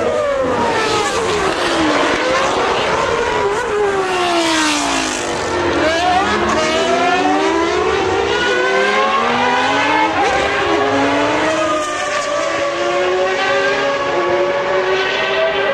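Several 1992 Formula One cars running at high revs through a corner. Their engine notes overlap, falling as the cars slow for the corner and then climbing again as they accelerate away.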